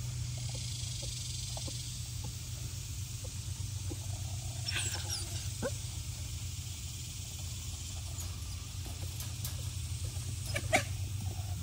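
Puppies whining and yelping a few times, with one sharper, louder sound near the end, over a steady low hum.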